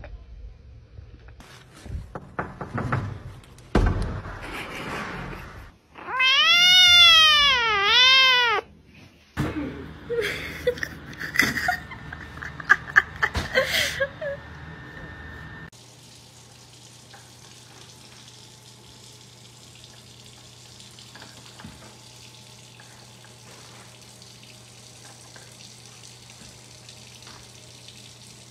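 A cat meowing, three loud rising-and-falling calls in a row, between scattered shorter rustling and handling noises. After that comes a long stretch of faint steady hum.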